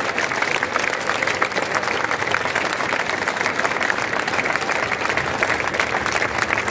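A large crowd applauding steadily, the dense clapping of many hands.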